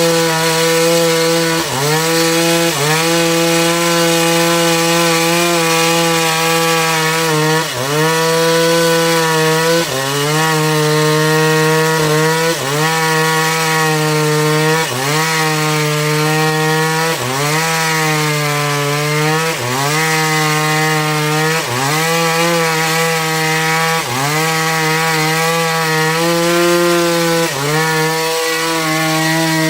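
Band sawmill cutting a Trembesi log: a loud, continuous whine whose pitch sags and recovers about every two seconds as the blade bites into the wood.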